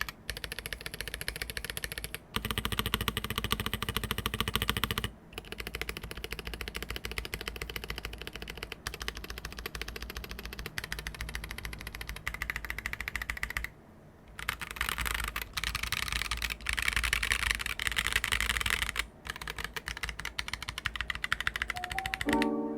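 Fast, continuous typing on a mechanical keyboard fitted with full-aluminium keycaps: rapid key clacks with a slight metallic ping on the upstroke, broken by a few short pauses.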